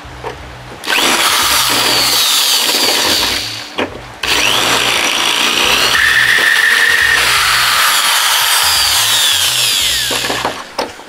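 Corded electric drill boring into a plated brass boat fitting to remove it, in two long runs: from about a second in to nearly four seconds, then from just past four seconds until near the end. High whining tones slide up and down in pitch as the bit cuts.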